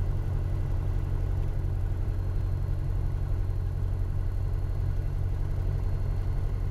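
Piper Warrior's four-cylinder engine and propeller at takeoff power during the takeoff roll, a steady low drone.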